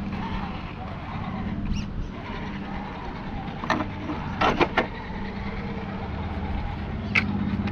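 Electric motor and geared drivetrain of a Redcat Gen 8 RC rock crawler running with a steady low hum. Several sharp knocks come a little past halfway and one more near the end.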